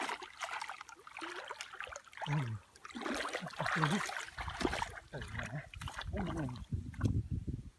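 Irregular splashing and sloshing of water as hands work in a shallow, muddy rice-field pool, with a low rumble coming in about halfway through.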